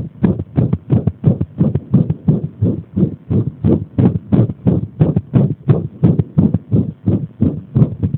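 Human heartbeat: a fast run of dull thumps with uneven spacing and strength, an arrhythmia brought on by pressure.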